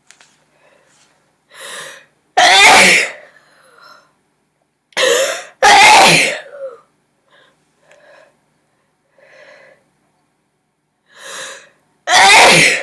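A woman sneezing three times in a sneezing fit, each sneeze led by a short drawn-in breath: about two and a half seconds in, about six seconds in, and again near the end. Faint small breaths come between the sneezes.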